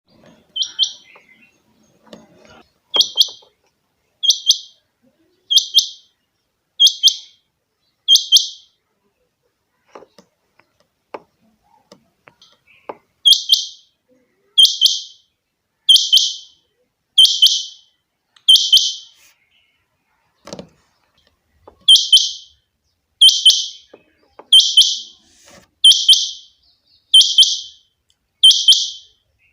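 Rain quail calling: a short, sharp, high-pitched call repeated about every second and a half, in two long runs with a pause of several seconds between them. A few faint knocks fall in the pause.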